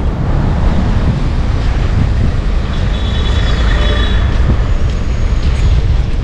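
Steady city street traffic noise with a heavy low rumble, heard while riding a bicycle along a bike lane beside the road. A faint high whine sounds briefly about three seconds in.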